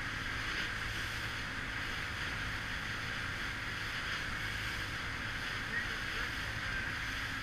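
Motorboat underway on choppy water: a steady low engine hum under a continuous rush of water along the hull.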